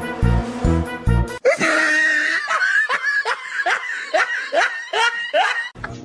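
Music with a steady bass beat for about a second and a half, then a run of quick, high-pitched laughter, about three laughs a second, lasting about four seconds.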